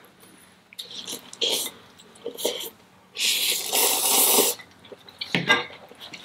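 Close-miked mouth and breath sounds of a person eating very spicy instant noodles: several short noisy bursts, and one long noisy rush lasting about a second and a half, starting about three seconds in.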